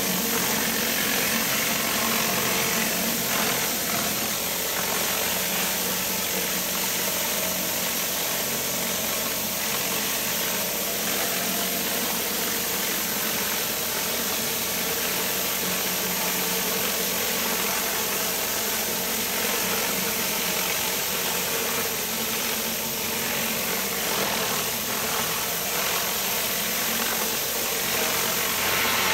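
Pressure washer engine running steadily under load, with the hiss of the high-pressure water jet blasting a sandstone patio.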